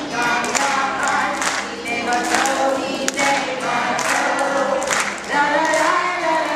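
A group of young children singing a song together in chorus, clapping along.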